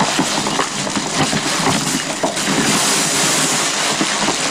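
Tissue paper rustling and crinkling as it is pulled out of a gift bag.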